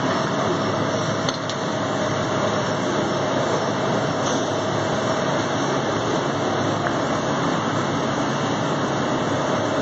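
Steady mechanical noise of a running factory assembly line: an even, constant rushing with a faint steady tone running through it and a couple of faint clicks.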